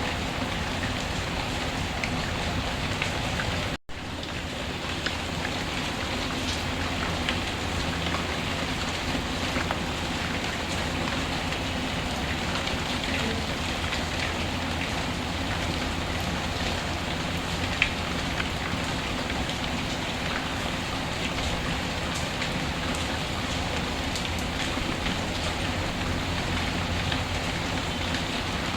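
Steady rainfall with scattered small crackles and an occasional pop from a wood fire. The sound drops out for a split second about four seconds in, then resumes.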